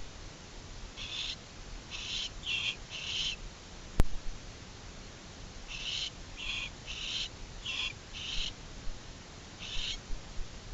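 Barn owls calling back and forth in the nest box: two runs of short, raspy, hiss-like calls, about four and then five in quick succession, with one more near the end. A single sharp click about four seconds in.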